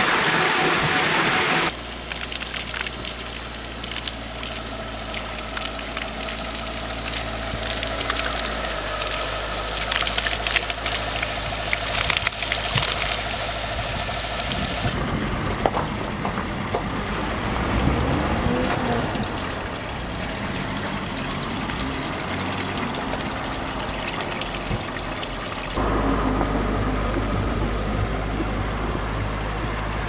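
Water running from fountain spouts and pipes, splashing into stone and concrete troughs. It is heard in several takes that change abruptly about two, fifteen and twenty-six seconds in, with a low rumble under some of them.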